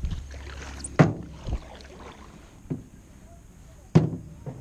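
Canoe paddling, with the paddle knocking against the side of the canoe: two sharp, loud knocks about three seconds apart and a few lighter ones between.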